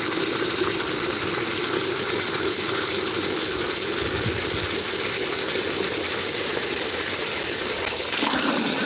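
Water jetting from a garden hose spray nozzle into a plastic bucket of syrup, a steady rushing churn as the jet stirs the mix. The sound shifts slightly about eight seconds in.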